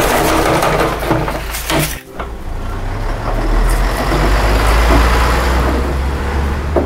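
Heavy truck sound effect: a deep diesel engine rumbling steadily with a wash of mechanical noise, dropping out sharply for a moment about two seconds in and then running on.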